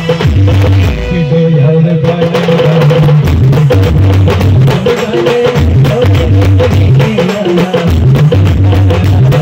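Live band music played loud: a repeating bass line and a steady drum beat under a held high note, with the drums briefly dropping out about a second in.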